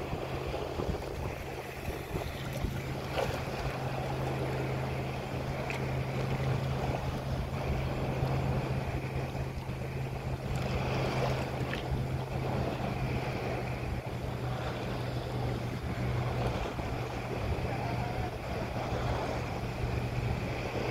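Boat under way on open water: a steady engine hum under the rush of water along the hull, with wind buffeting the microphone.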